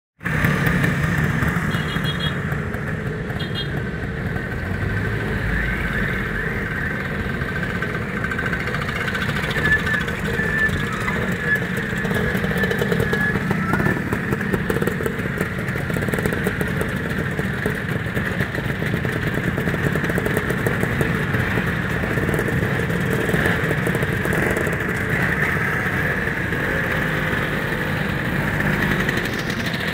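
Many Vespa scooter engines running together, a continuous mix as a line of scooters pulls away past the listener one after another.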